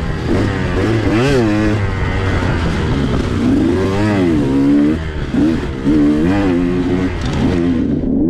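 2021 KTM 125XC's single-cylinder two-stroke engine revving up and down continuously as the bike is ridden hard on a muddy trail.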